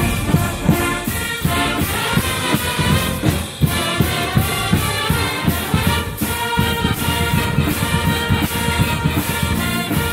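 Pep band playing an up-tempo tune: brass with sousaphones over a steady drum-kit beat.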